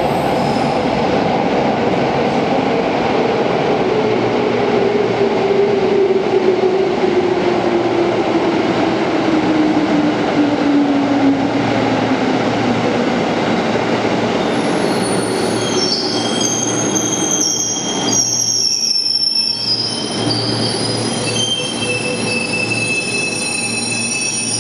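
JR East 205-3100 series electric commuter train running into a station and slowing, its running hum falling steadily in pitch over several seconds. In the second half, at an underground platform, a train's wheels squeal in several high, steady tones as it moves past.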